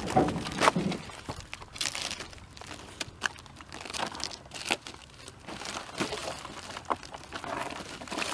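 Scrap sawmill wood being picked off a pile and loaded: irregular knocks and clatter of wood pieces, with crunching and rustling between them.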